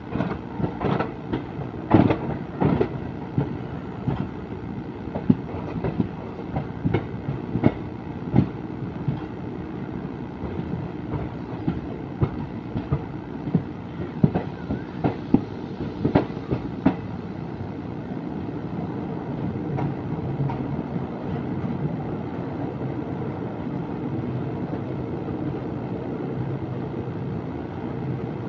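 Passenger train running, heard from its open door: wheels clattering over the track with many sharp clacks over a steady rumble. The clacks stop about 17 seconds in, leaving a steadier rumble.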